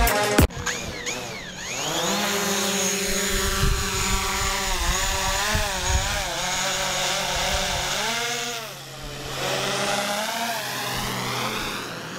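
DJI Mavic Pro quadcopter's propellers buzzing as it takes off. The pitch climbs as the motors spin up in the first couple of seconds, then wavers up and down as the drone hovers and manoeuvres, dropping away briefly about nine seconds in.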